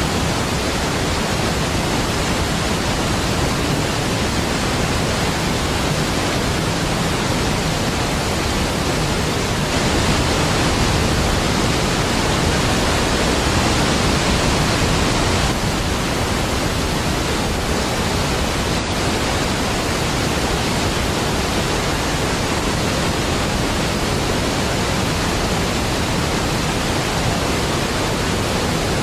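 Niagara Falls, a large waterfall: a deep, steady rush of falling water, a little louder for a few seconds around the middle.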